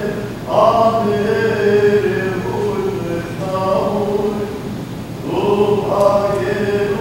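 Voices singing a slow Armenian liturgical chant of held notes, with a new phrase beginning about half a second in and another about five seconds in.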